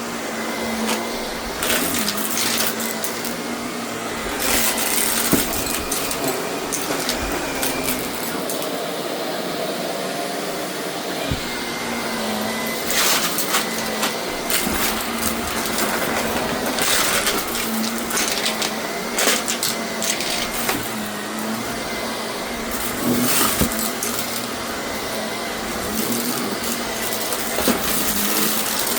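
Shark vacuum cleaner running steadily, its motor giving a constant hum with a thin high whine, and irregular sharp clicks and crackles of debris being sucked up.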